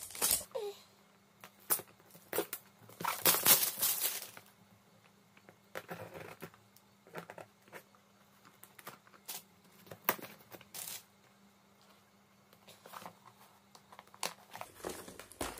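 A cardboard shipping box being opened by hand: tearing and crinkling of the box and its packaging in irregular bursts, the loudest stretch about three to four seconds in, with quieter rustles and handling knocks after.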